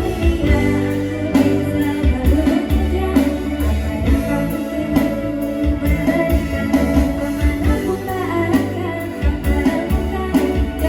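Background music led by guitar, with a singing voice and a steady beat.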